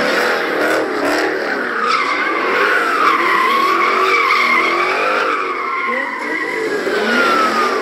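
Car doing donuts: tires squealing without a break, the pitch wavering as it spins, over the engine revving hard.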